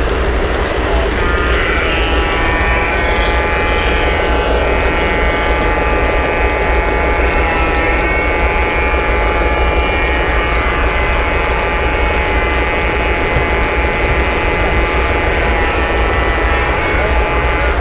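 O scale model train heard from on board, its wheels rolling with a steady rumble and rattle on three-rail track. A steady whine sets in about a second in, dips briefly around the middle and fades near the end.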